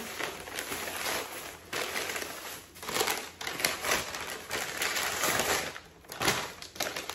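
Brown kraft wrapping paper crinkling and crumpling in the hands as it is pulled apart and unwrapped from a mug, with a plastic shopping bag rustling. The crackles come in irregular bursts of varying loudness.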